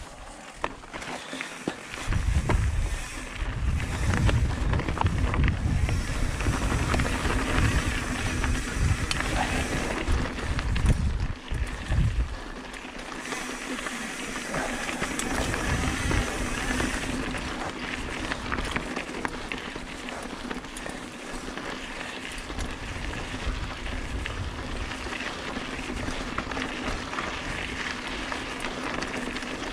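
Singlespeed mountain bike riding down a rough trail: wind buffeting the camera microphone for the first twelve seconds or so, then a steadier rush of tyres rolling over dirt and rock with scattered clicks and rattles from the bike.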